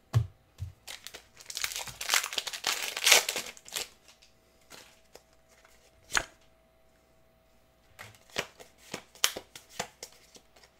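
Foil wrapper of a Pokémon card booster pack crinkling as it is torn open and handled, densest from about a second and a half in to about four seconds. Scattered sharp clicks and taps of handling follow, one about six seconds in and a cluster near the end.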